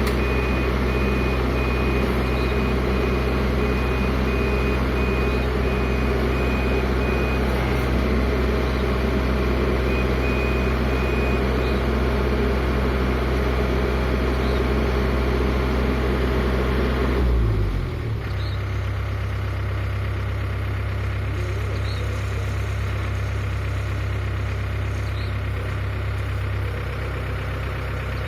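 Heavy machine's engine running hard with a reversing alarm beeping. About seventeen seconds in, the engine drops down to a lower idle.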